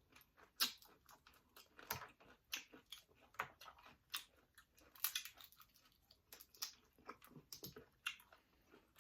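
A person chewing spicy seafood boil with wet smacking, and many irregular sharp clicks and crackles.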